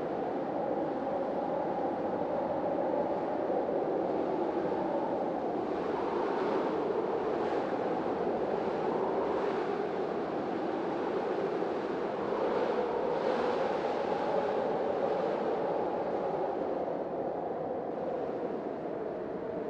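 Hurricane-force storm wind blowing steadily, with a low rushing howl that swells in gusts, strongest in the middle of the stretch.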